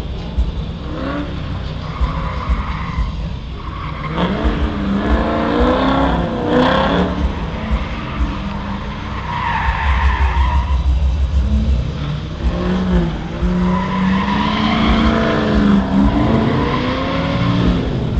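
Fourth-generation Pontiac Firebird drifting: the engine revs up and falls back again and again while the rear tyres squeal in several long stretches of sliding.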